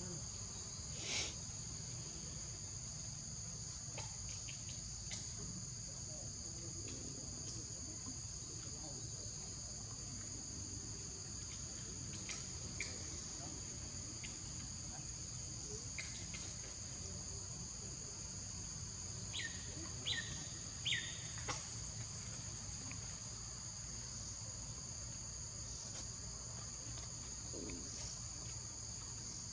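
Insects droning steadily at a high pitch, with three short falling chirps about two-thirds of the way through.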